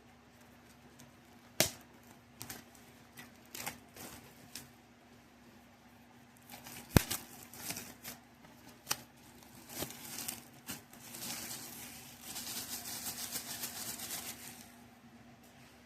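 Hands handling a vinyl record's packaging: scattered clicks and taps, the sharpest about seven seconds in, then a few seconds of dense crinkling rustle near the end.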